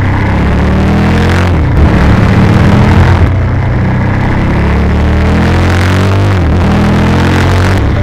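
Motorcycle engine running under way through bends, its pitch rising and falling a few times as the rider accelerates and eases off, over a steady rush of wind.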